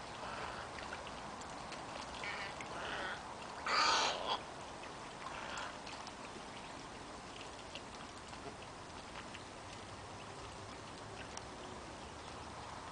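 Wading birds giving short, harsh croaking squawks, about five calls in the first six seconds, the loudest about four seconds in; after that only a faint hiss with a few small ticks.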